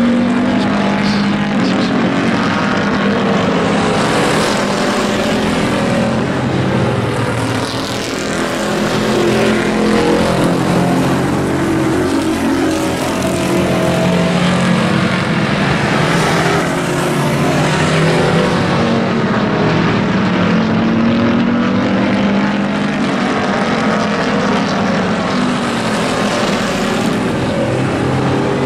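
A pack of pickup-truck race cars running laps together, their engines loud and overlapping, rising and falling in pitch as they go around the track.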